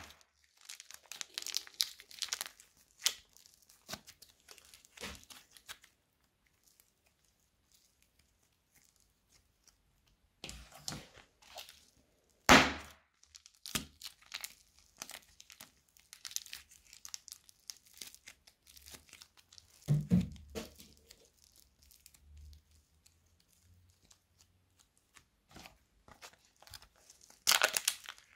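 Thin plastic bags of clay crinkling and crackling as they are squeezed and torn open by hand, with a few short, loud rips. There is a quiet stretch of several seconds partway through.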